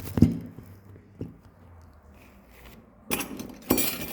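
Dishes and cutlery being handled on a table: a dull thump, a lighter knock about a second later, then a burst of scraping and clinking near the end.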